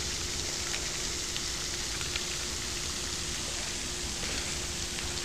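Steady outdoor background hiss with a faint, even hum underneath and a few faint ticks.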